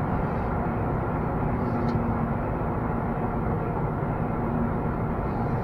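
Steady road and tyre noise inside the cabin of a 2014 Honda Fit Shuttle Hybrid on the move, slowing under regenerative braking, with a faint steady hum underneath.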